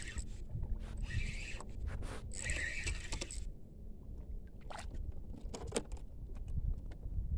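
Wind rumbling on a phone microphone over open water on a small boat, with rustling and scraping for the first three and a half seconds as the phone rubs against clothing, then a few light clicks of handling.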